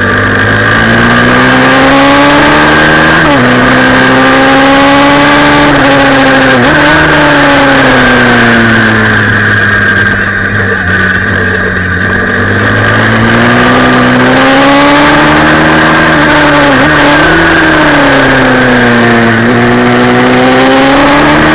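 Single-cylinder pit bike engine heard onboard while lapping a track, its pitch repeatedly rising and falling as it is revved out and then backed off for the corners, with brief sharp dips about 3, 7 and 17 seconds in.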